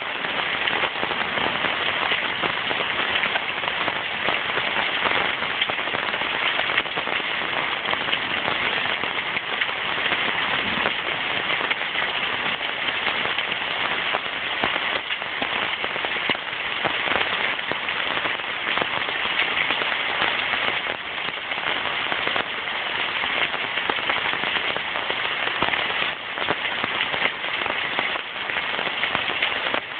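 Heavy rain pouring steadily in a downpour: a dense, even hiss with many close drops striking.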